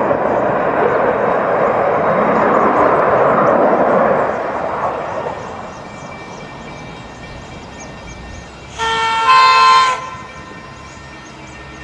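A passing aircraft's rushing noise fades away over the first five seconds. Then, about nine seconds in, the approaching V/Line N class diesel locomotive sounds its horn in one chord of about a second.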